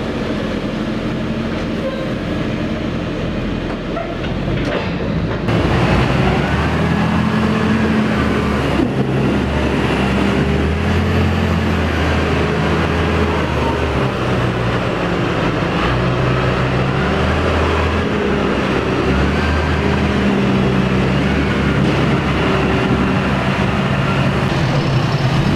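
Heavy diesel tractor engines working hard on a silage clamp, the engine note rising and falling as the load changes. About five and a half seconds in the sound steps louder and changes to the Valtra T214's six-cylinder engine pulling as the tractor climbs and rolls the grass.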